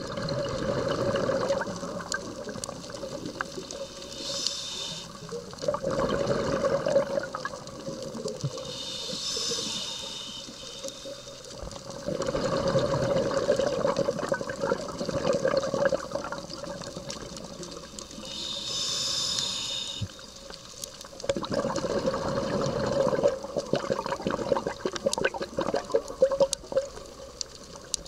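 Scuba diver breathing through a regulator underwater: a short hiss on each inhale, three times, each followed by several seconds of bubbling as the exhaled air escapes.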